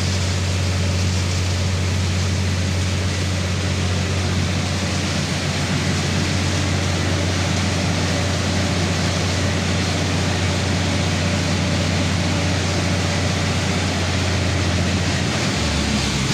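Heavy diesel machinery running steadily under load with a deep engine hum and a wash of mechanical noise; the hum drops slightly in pitch near the end.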